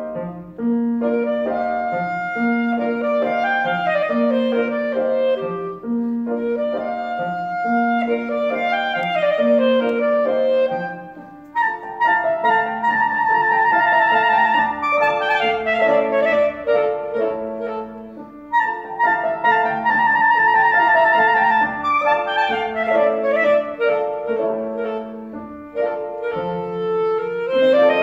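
Clarinet playing a classical melody with piano accompaniment. In the first half the piano repeats a low note about once a second. Near the end there is a quick downward run.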